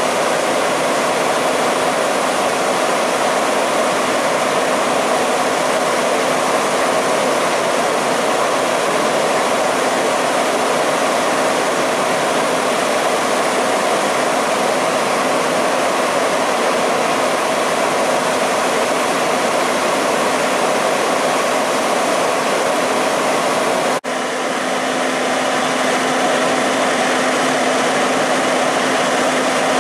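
Fire truck engines running: a loud, steady drone with a constant hum, dipping briefly near the end.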